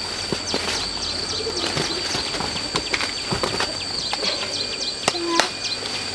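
Small birds chirping amid scattered clicks and rustles, over a steady high-pitched tone.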